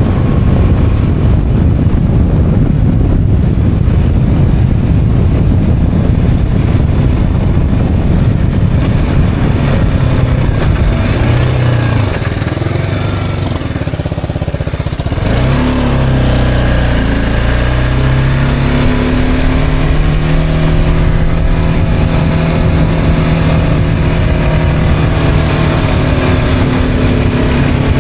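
Motorcycle on the move with heavy wind noise over the microphone at speed. About halfway the wind eases as the bike slows for a bend, then the motorcycle's engine note falls and rises again as it pulls away.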